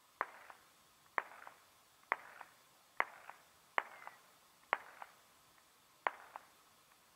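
Seven sharp clicks, roughly one a second, each followed by a fainter second click about a third of a second later.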